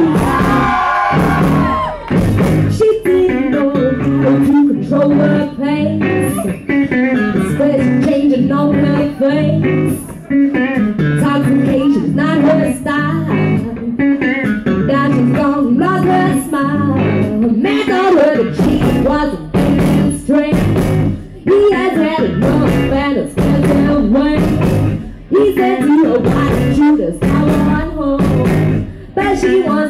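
Live band playing a rhythm-and-blues number: a woman singing lead into a microphone over a drum kit keeping a steady beat.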